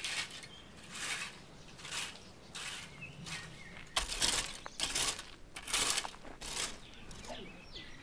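Footsteps walking at a steady pace, about one step every three-quarters of a second, each a short crunching stroke. A few faint bird chirps come near the end.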